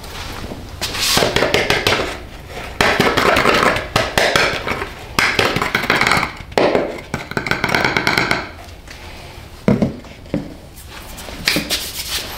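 Plastic funnel jiggled and tapped in the fill opening of an abrasive blaster tank to shake baking soda down into it: four bouts of rapid rattling taps, then a few separate knocks near the end as the funnel comes off.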